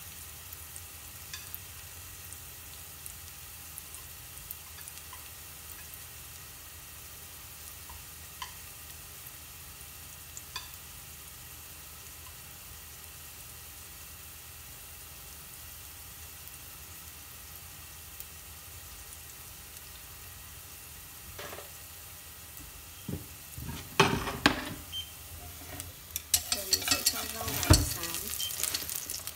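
Chopped garlic sizzling softly in a little oil in a stainless steel pot, with scattered small pops. In the last several seconds chopsticks stir the garlic, knocking and scraping against the pot.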